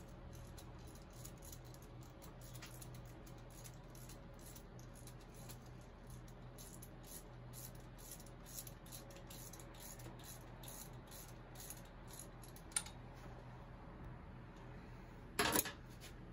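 Faint clicks and light metal rattles of a hand tool working on a shovelhead engine's intake manifold. A sharp click comes near the end, then a louder short clank about a second before the end.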